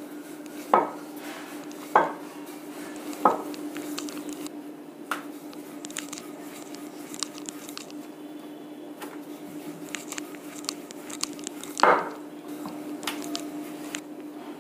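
Hand patting and pressing ragi dough flat on a flour-dusted round rolling board: soft pats and light rubbing, with sharper knocks three times in the first few seconds and once more near the end. A steady low hum runs underneath.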